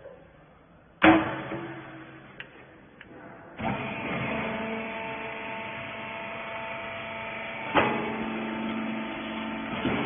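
Wiper rag baler: a loud metal clank about a second in, as its loading lid is shut, then from about three and a half seconds the baler's motor running with a steady hum. Another sharp knock comes near the end, as the machine works through its compressing cycle.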